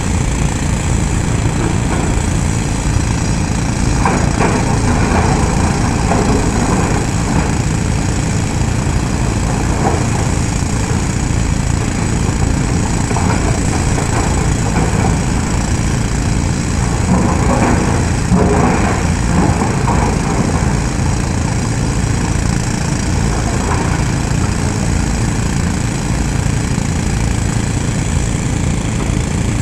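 LiuGong 924E crawler excavator's diesel engine running steadily under working load as it digs and loads rock, with occasional clatter and scrape of stone against the bucket.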